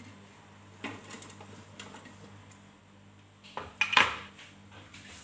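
Kitchen handling knocks and clatter as chopped green peppers are moved off a wooden cutting board into a plastic blender jar: a brief patter of knocks about a second in and a louder clatter of knocks around four seconds in.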